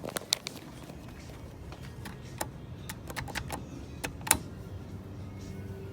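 Scattered sharp clicks and taps over steady background noise, the loudest about two and a half and four seconds in; about five seconds in a steady low hum sets in.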